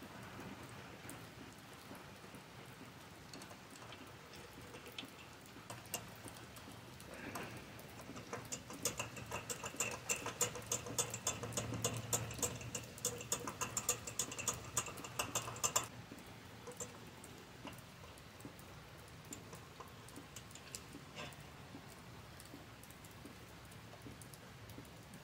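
Rapid light clicking and scratching, several strokes a second for about eight seconds in the middle, as a dirty small-engine part is scrubbed clean by hand.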